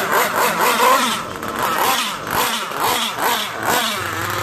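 Nitro RC car's small two-stroke glow engine revved in quick repeated throttle blips, its pitch rising and falling about twice a second, while the needle is being tuned; the tuner judges the mixture too lean.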